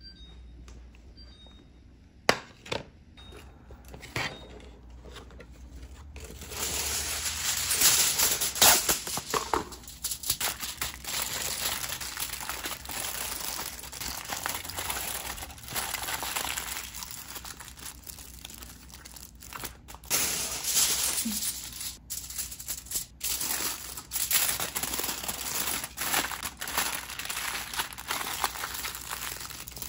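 Aluminium foil crinkling and crackling as it is folded and pressed by hand around food. After a few light taps, the crinkling starts in earnest about six seconds in.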